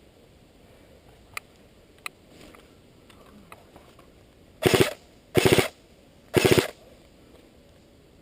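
Three short full-auto bursts from an airsoft electric gun, each about a third of a second of rapid fire, spaced about a second apart in the second half. Two single sharp clicks come earlier.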